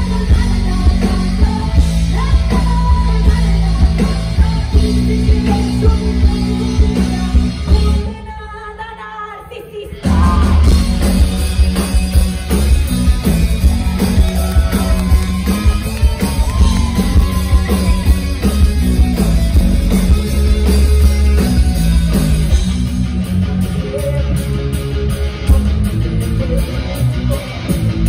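Live rock band playing: distorted electric guitar, bass guitar and drums with sung vocals. About eight seconds in the band drops out for about two seconds, then comes crashing back in.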